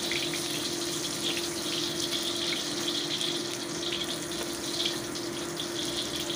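Hot oil sizzling steadily in a carbon-steel wok as garlic cloves are fried and stirred with a metal spatula, over a steady low hum.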